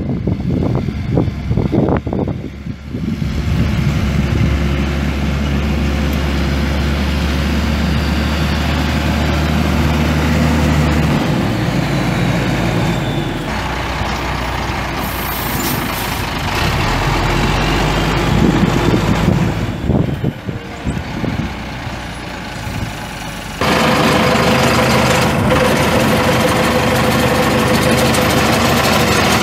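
Diesel engine of a vacuum truck running, heard across several cut-together clips: a steady low engine note that changes abruptly at each cut.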